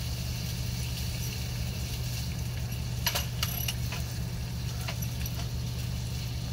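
Small pieces of sirloin steak sizzling in a frying pan on a portable gas burner, with a metal fork clinking against the pan a few times in the second half, over a steady low hum.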